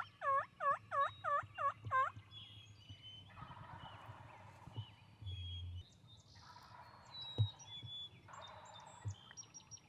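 Wild turkey gobbling: a loud run of about six quick rattling notes in the first two seconds, followed by quieter calls, with small birds chirping in the background.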